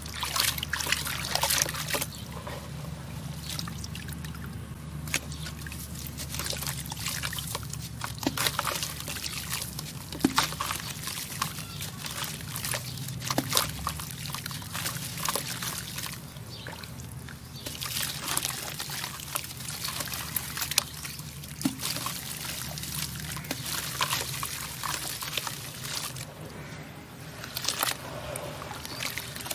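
Hands crumbling dry, gritty, extra-crunchy pressed shapes into a tub of water: irregular crunching and crackling as they break apart, with grit and crumbs falling into the water and wet squishing as the mass is worked under water.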